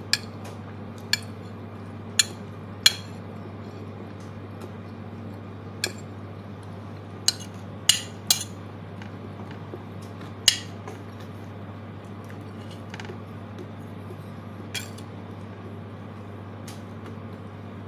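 Metal spoon clinking and scraping against a plate while scooping rice and meat: about a dozen short, sharp taps spread irregularly, over a steady low hum.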